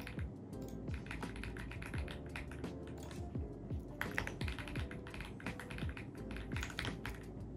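Typing on an AULA F75 mechanical keyboard: a dense, uneven run of key clacks over background music with a beat.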